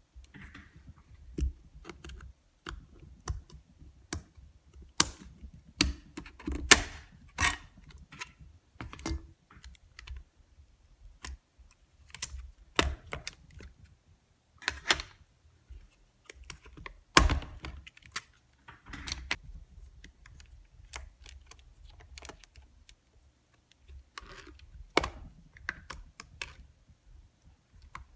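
Irregular clicks, taps and knocks of hands and a tool working on a Getac F110 rugged tablet to take out its SSD. The loudest knocks come about a quarter of the way in and a little past the middle.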